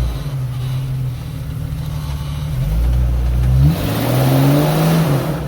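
Jeep engine revving hard on an off-road climb, its pitch rising about two-thirds of the way through, joined by a loud rushing hiss over the last couple of seconds.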